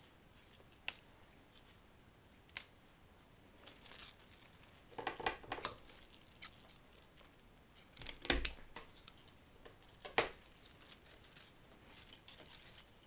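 Scissors snipping flower stems: several sharp snips spread over the stretch, a couple of them in quick clusters, the loudest about eight seconds in.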